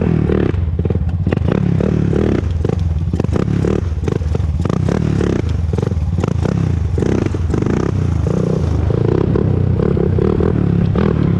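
Honda TRX400EX ATV's single-cylinder four-stroke engine running under varying throttle while being ridden, with scraping and clattering noise over it.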